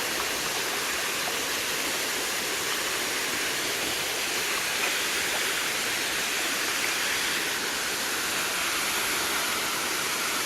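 Creek water rushing steadily over rocks in a small rapid.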